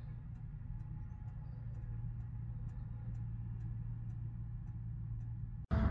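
Vehicle engine idling, heard from inside the cab: a steady low hum with faint light ticks. It cuts off suddenly near the end.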